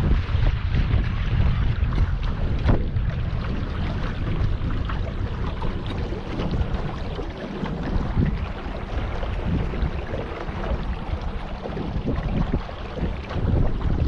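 Wind buffeting the microphone on a boat under way: an uneven low rumble that rises and falls in gusts, over the rush of water.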